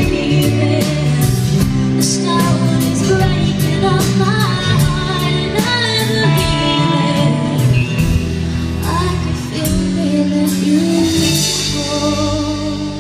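Live country band: a woman singing over electric guitar, electric bass and drums. The band eases off and the music starts to fade near the end as the song closes.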